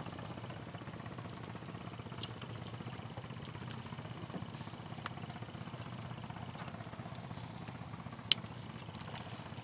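A small engine idling steadily. Light clicks now and then, and one sharp click about eight seconds in.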